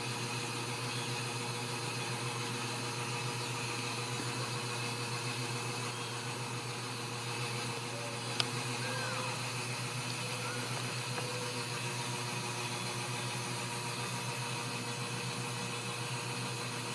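Steady mechanical hum, like a fan or appliance running, unchanging throughout. A single faint click comes a little before the middle, followed by a couple of faint, short mews from young Ragdoll kittens.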